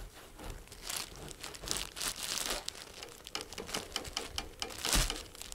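Plastic wrapping crinkling and rustling as it is handled, in irregular crackles, with a louder rustle about five seconds in.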